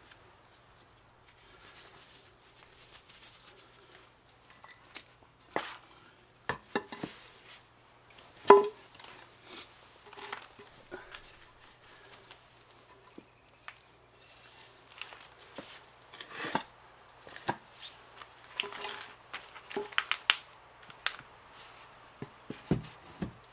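Tire-changing hand tools clinking and knocking against metal at irregular intervals, with the loudest knock about eight and a half seconds in.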